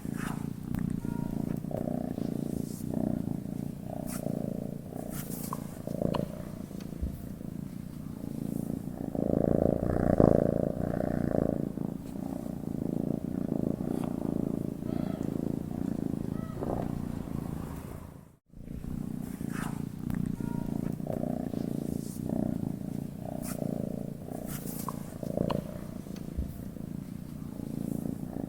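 Domestic cat purring continuously in a low, pulsing rumble. It swells louder for a couple of seconds about a third of the way in, and breaks off very briefly about two-thirds through before carrying on.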